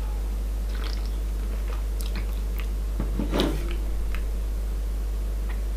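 A person sipping from a drink can and swallowing, with small mouth sounds and a few light clicks, and a short pitched mouth sound about three and a half seconds in. Under it runs a steady low electrical hum.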